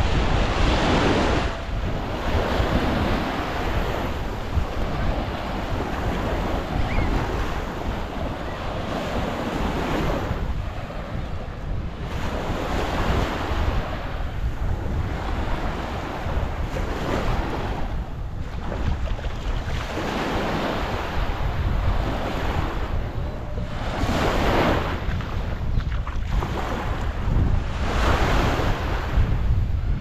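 Small Mediterranean waves breaking and washing onto a sandy beach, the wash swelling every few seconds. Wind buffets the microphone underneath as a steady low rumble.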